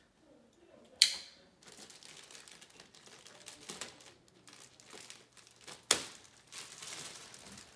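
Packaging crinkling and rustling as chair parts are unwrapped, with two sharp snaps or tears, one about a second in and one near six seconds.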